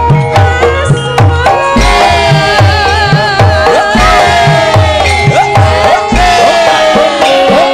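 Javanese gamelan music. Kendang drum strokes with bending pitch repeat about twice a second, over struck metal keys and a long sliding melodic line.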